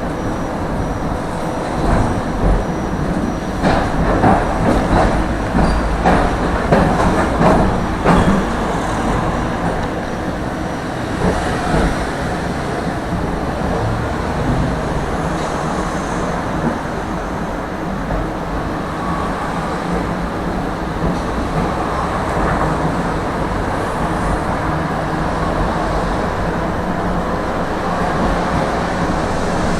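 Tram running on its rails: a steady rolling rumble, with a run of clacks and knocks from the wheels over the track a few seconds in.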